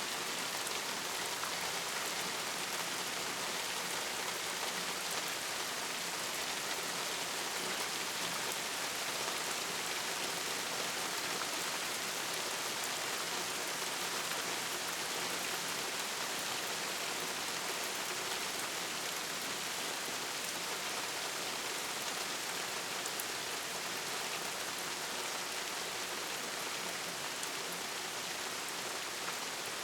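Steady rainfall, an even hiss of many drops falling, with faint scattered drip ticks.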